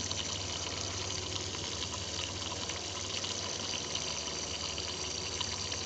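Compressed air leaking past the exhaust valve of a remanufactured Chrysler 5.2 L Magnum cylinder head, fizzing and bubbling steadily up through the brake cleaner pooled over the valve during a leak-down test. The exhaust valve is not sealing on its seat; the owner blames valve guides that were reamed too loose when the head was rebuilt.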